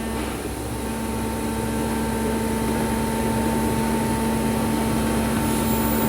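Steady hum of factory machinery in a plastic injection-moulding plant: a constant tone over a low rumble, growing slightly louder.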